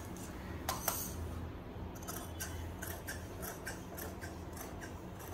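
Large tailor's shears cutting through a double layer of cloth, the blades closing in a quick, even run of snips about four a second.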